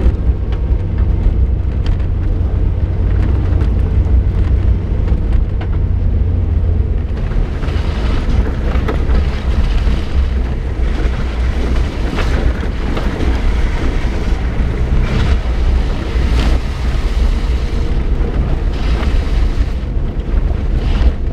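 Suzuki Jimny driving slowly, heard from inside the cab: a steady low engine and road rumble. From about seven seconds in, irregular knocks and jolts come in as it moves onto the rough, puddled track.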